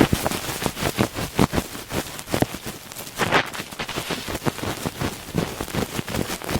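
Close-miked ASMR ear sounds: dense scratching and crackling on the microphone, many quick irregular clicks over a rustling hiss.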